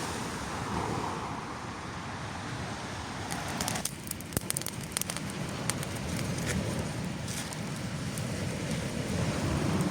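Small campfire of dry sticks crackling, sharp pops starting about three and a half seconds in, over a steady rush of wind and sea surf.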